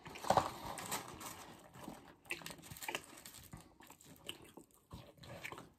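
Fast-food chewing and biting close to the microphone: irregular soft crunches and mouth clicks, the loudest about a third of a second in.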